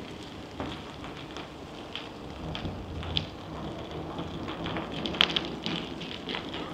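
Rain falling, a steady hiss with scattered sharp ticks of drops landing close by, the sharpest about five seconds in.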